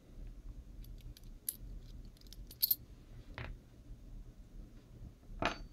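Small metallic clicks and light taps as the head of a Darwin safety razor is handled and worked with the fingers, with a sharper click a little under three seconds in. Two softer brushing noises follow later.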